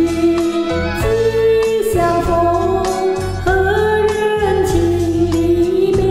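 A slow Chinese ballad: a singer holds long notes of the melody over instrumental backing.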